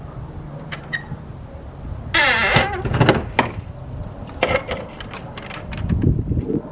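Car being let down off its jack onto new wheels: a loud creak about two seconds in, followed by scattered clicks and knocks.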